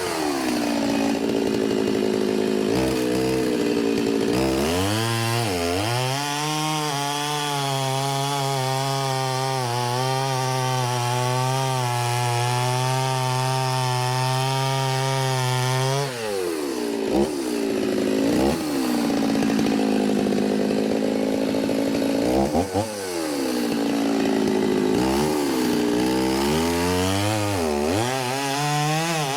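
Stihl chainsaw running at high revs while bucking oak logs into firewood rounds. Its pitch holds steady through long stretches of cutting, then drops and picks back up several times as the throttle is eased and reapplied between cuts.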